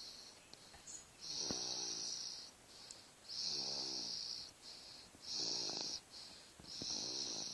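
A five-month-old baby snoring, with about four rough snoring breaths, one every two seconds or so.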